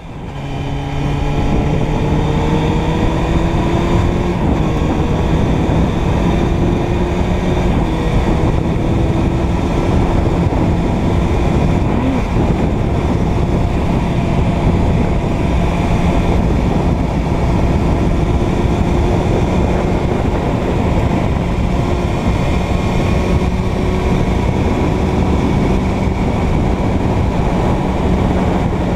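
Suzuki Bandit 600's inline-four engine running as the motorcycle rides along, its pitch rising over the first few seconds and then holding steady at cruise. Wind and road noise run underneath.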